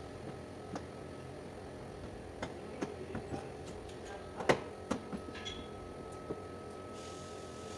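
Scattered light taps and knocks from handling around a car's rear body panel, the sharpest about four and a half seconds in, over a steady faint high whine in the workshop.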